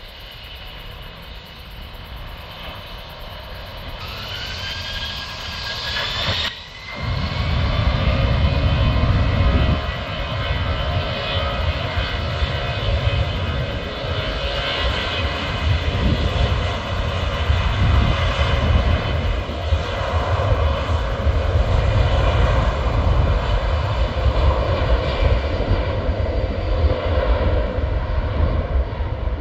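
Airbus A340-300's four CFM56 turbofan engines: a whine rising in pitch over about two seconds, then a loud, steady low rumble with jet whine above it.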